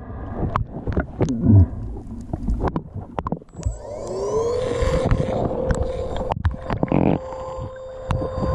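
Underwater, an electric sea scooter's motor spins up about four seconds in, its whine rising quickly and then holding steady. Scattered clicks and knocks come before it.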